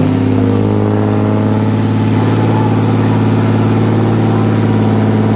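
Lifted pickup truck's engine held at steady revs: a loud, even exhaust drone that does not rise or fall.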